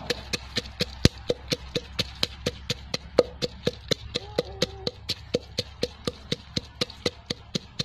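Wooden pestle pounding red chilies in a clay mortar: quick, even knocks, about five a second.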